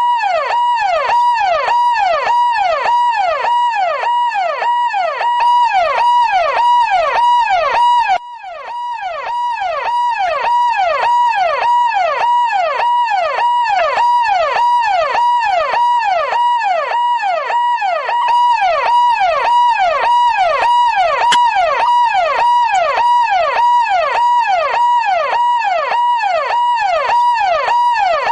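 Electronic police car siren in yelp mode: a fast, repeating rising-and-falling wail over a steady high tone. Its level drops briefly about eight seconds in, then it carries on.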